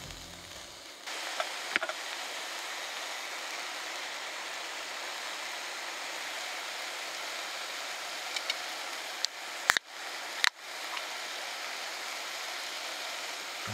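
Bacon, onion, shimeji mushrooms and asparagus sizzling steadily as they fry in olive oil in a camping cook pot. A few sharp clicks sound about two seconds in, with the loudest pair near ten seconds.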